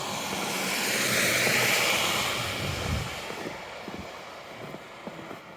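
A vehicle passing on a wet, slushy street: its tyre hiss swells, peaks about one to two seconds in, then fades away. Faint footsteps follow near the end.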